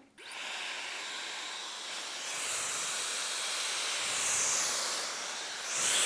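Dyson Supersonic hair dryer blowing on a low setting: a steady airy hiss that grows a little louder and brighter about four seconds in and again near the end.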